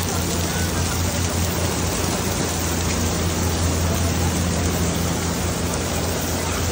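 Steady rain falling on a wet cobblestone street, an even continuous hiss, with a low steady hum underneath.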